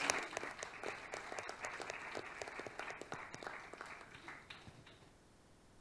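Audience applauding, thinning out and fading away about five seconds in.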